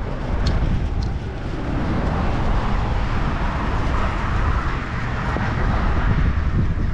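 Steady rush of vehicle traffic on the highway bridge, swelling to a peak about halfway through as traffic passes, under a heavy low rumble of wind buffeting the microphone.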